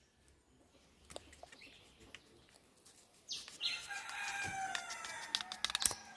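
A rooster crowing: one long call starting about three seconds in. Scattered sharp clicks and taps come before it and again near its end.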